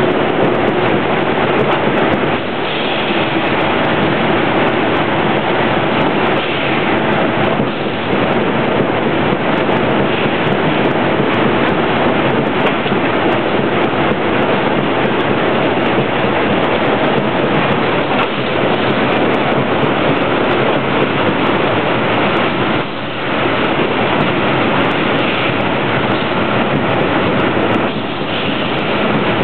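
Factory machinery on a corrugated board line running: powered roller conveyors and a sheet-stacking machine make a loud, steady rush of noise with a few brief dips.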